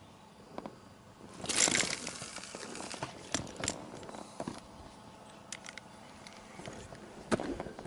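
Rustling and crinkling handling noise, with a louder rush about a second and a half in and a few sharp clicks after it.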